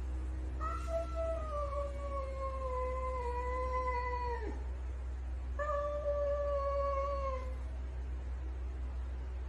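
A cat giving two long, drawn-out yowls: the first lasts about four seconds, sliding slowly down in pitch and ending in a sharp downward drop; the second, about two seconds long, starts after a short pause. A steady low hum runs underneath.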